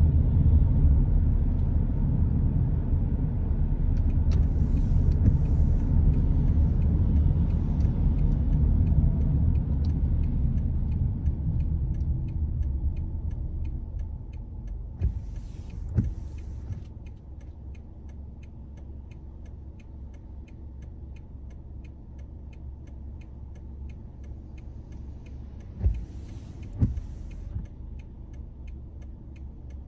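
A car driving in the rain: low tyre and road rumble that dies away about halfway through as the car slows to a stop. A steady, rapid ticking follows. Twice near the end there is a brief swish ending in a knock, like a windscreen wiper sweep.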